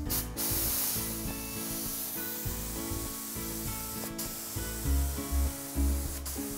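Siphon-cup air spray gun hissing as it sprays sanding sealer onto a plywood panel. The hiss cuts out briefly a few times as the trigger is let off. Background music plays underneath.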